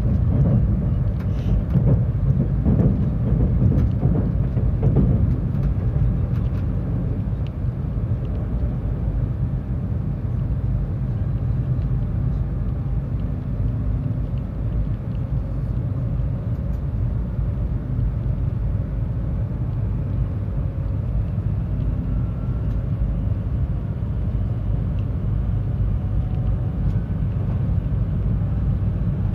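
Tohoku Shinkansen train, a steady low rumble with a few brief sharper sounds in the first few seconds.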